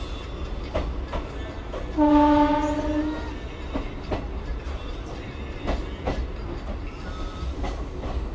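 A freight train of open hopper wagons rolling past on the adjacent track: a steady low rumble with wheels clacking over the rail joints now and then. About two seconds in, a locomotive horn sounds one steady note for about a second, the loudest sound here.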